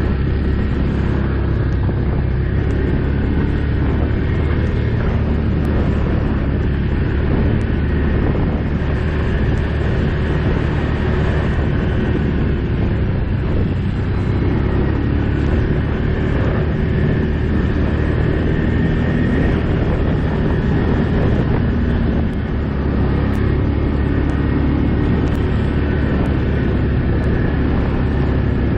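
ATV engine running steadily while the quad rides along a dirt track, a constant low drone with a brief dip in level about three-quarters of the way through.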